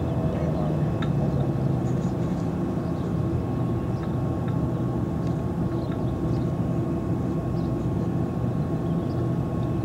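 The last of a Federal Signal 2001-SRN siren's wind-down, its falling tone fading out in the first moment. It leaves a steady low hum with a thin steady tone over it and a few faint ticks.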